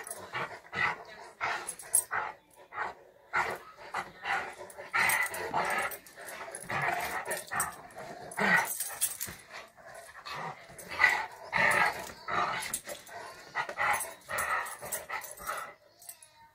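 A Labradoodle and a black-and-white collie-type dog play-fighting, growling and grumbling in short, irregular bursts. The sound cuts off suddenly near the end.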